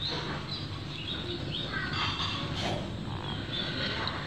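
Scattered short, high chirps of small wild animals over a steady low background rumble.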